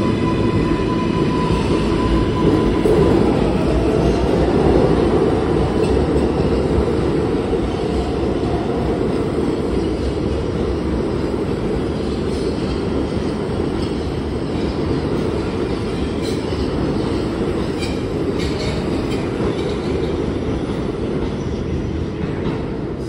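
New York City subway train running, a steady low rumble of steel wheels on rail that slowly eases. A thin high whine near the start fades within a couple of seconds, and a few light wheel clicks come later on.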